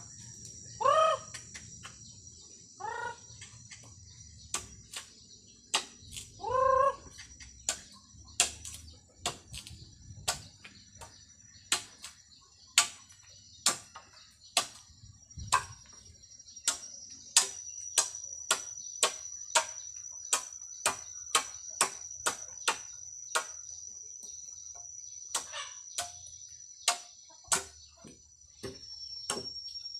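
Machete chopping bamboo poles in sharp, irregular strikes, about one or two a second. A chicken calls loudly three times in the first seven seconds, over a steady high drone of insects.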